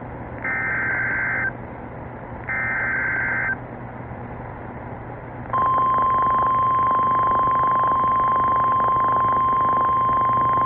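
Emergency Alert System tones on NOAA Weather Radio. First come the last two bursts of the SAME digital header, each about a second of shrill data warble with a second's gap between them. About halfway through, after a short pause, the steady 1050 Hz warning alarm tone starts and holds, all over a light radio hiss. The sequence signals that a new warning is about to be read, here a severe thunderstorm warning.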